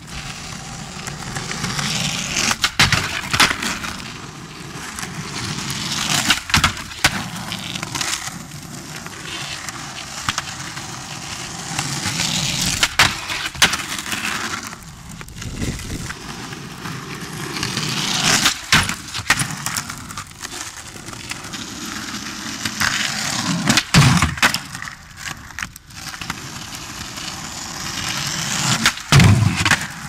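Skateboard wheels rolling on rough asphalt, the rolling noise swelling and fading several times, broken by sharp clacks and thuds of the board popping and landing, with the two heaviest knocks near the end.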